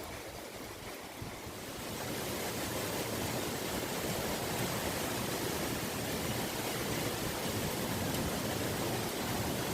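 Strong wind blowing, a steady rushing noise that swells about a second or two in and then holds.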